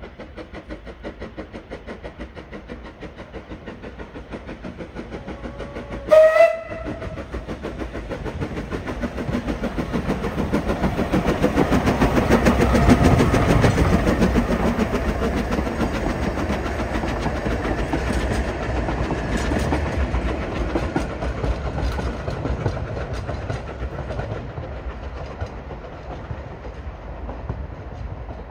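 Narrow-gauge steam locomotive No.11 'Maitland', a Beyer Peacock 2-4-0 tank engine, chuffing steadily as it hauls its train, with a short whistle about six seconds in. The exhaust beat and the carriage wheels grow loudest about halfway through as the engine passes close, then fade as the train draws away.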